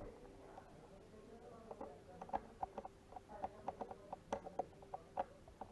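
Small sharp plastic clicks from a computer mouse being worked on, a quick irregular run of them starting about two seconds in, over a faint steady hum.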